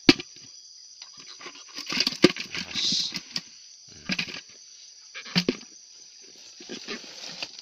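A steady high insect drone, broken by irregular knocks, thuds and rustles of handling, loudest about two seconds in and again around five and a half seconds.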